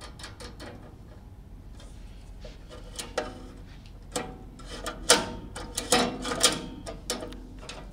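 Small metal clicks and light clatter as a screw and nut are fitted by hand onto the steel connecting plate of a pool table's lock linkage. The clicks are irregular and come thickest in the second half.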